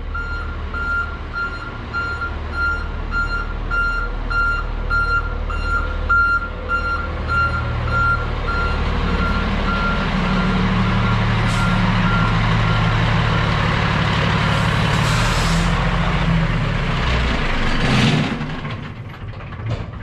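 A rescue truck's reversing alarm beeps steadily as it backs in, stopping about nine seconds in, while the truck's engine runs. Later two loud hisses of air, from the air brakes, come near the end, and then the engine quietens.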